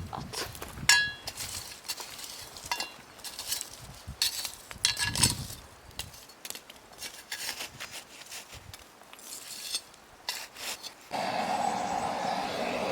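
Scattered knocks and clinks of hard objects being handled, with one ringing clink about a second in. Near the end, a steady rushing noise comes in abruptly.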